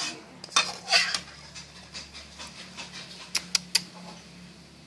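Clinks and rattles of a metal pot and hard fried crab shells being handled over a plate, thickest in the first second, then a few sharp clicks about three and a half seconds in.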